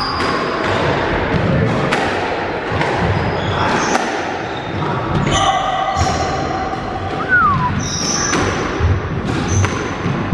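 Squash rally: the ball striking rackets and walls in a run of sharp knocks, with sports shoes squeaking on the wooden court floor.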